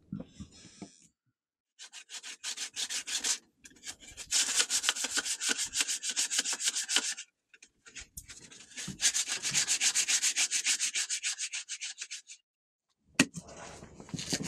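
Something being rubbed or sanded by hand in fast, even back-and-forth strokes, about six a second, in three runs with short pauses between them.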